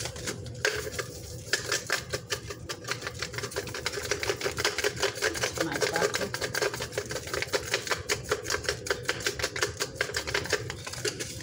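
Plastic seasoning bottle shaken and tapped hard in a rapid run of clicking taps, several a second, to loosen seasoning that has stuck together inside.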